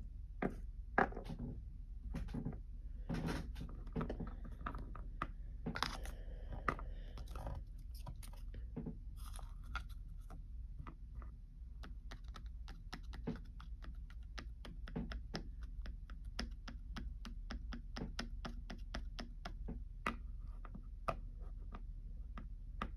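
Light clicks and taps of small plastic Littlest Pet Shop figurines being handled and tapped on a tabletop. They come irregularly at first, then from about ten seconds in become a quick, even run of small taps.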